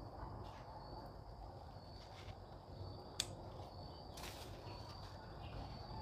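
Faint, steady high-pitched insect trilling in the background, with a few soft clicks and one sharper tick about three seconds in.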